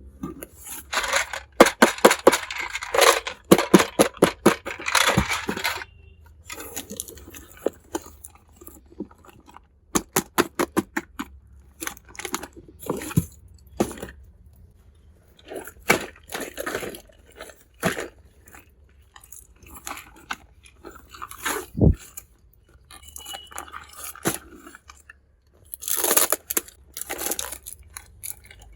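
Close-up unboxing of a toy kitchen set: plastic packaging crinkling and rustling in dense spells, with many sharp clicks and taps of small toy pieces being handled and set down, and one duller thud about two thirds of the way through.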